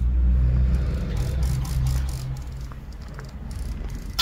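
A machine running with a low, steady hum that drops away about two seconds in, followed by a single sharp click near the end.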